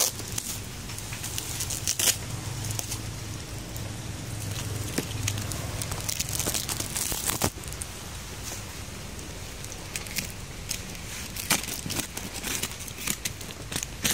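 Clear plastic wrapping film crinkling and rustling against a cardboard box as it is handled, with irregular crackles and sharp clicks.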